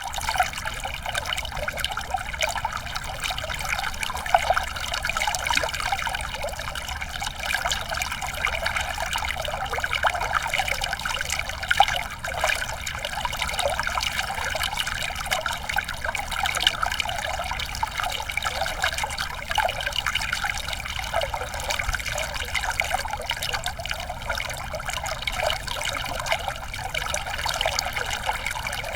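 Small savannah stream trickling and gurgling over rocks, a steady running-water sound with little splashes.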